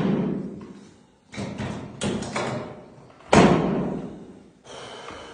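A run of heavy thuds during chiropractic high-velocity manipulation, each sudden and fading quickly. The loudest comes about three seconds in, with a weaker one near the end.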